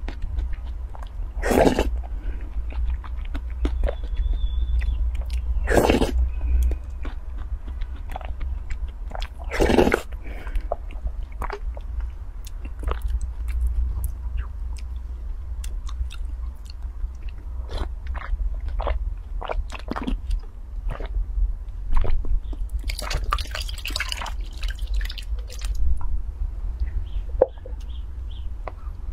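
Close-up eating sounds: a person slurping and chewing spoonfuls of a milky, soupy dessert, with several loud slurps and many small clicks of a wooden spoon in a glass bowl.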